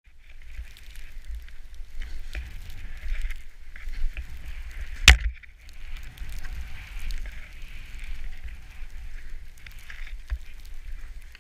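Skis running through deep powder snow: a steady hiss with wind rumbling on the microphone, broken by one sharp knock about five seconds in.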